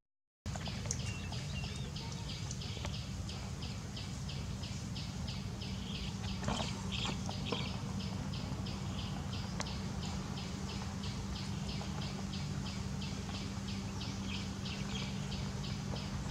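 A rhythmic high-pitched chirping, about four pulses a second, with a steady low hum beneath; it comes in after a brief dropout at the start.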